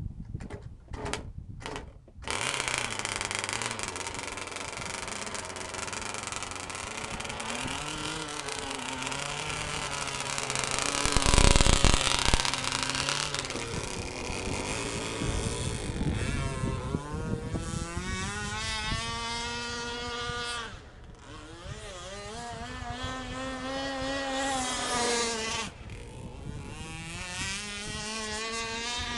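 Gas-powered RC catamaran's small RCMK two-stroke engine: a few short bursts, then it catches about two seconds in and runs steadily, revving loudest about eleven seconds in. Later its pitch swings up and down repeatedly as the throttle is worked, with brief drops about twenty-one and twenty-six seconds in.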